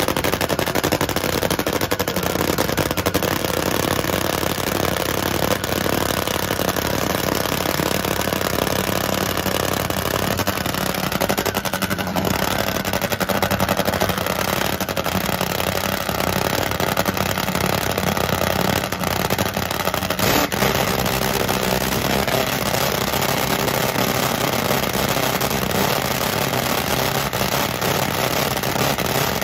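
Top Fuel nitro drag motorcycle engine idling loud and steady.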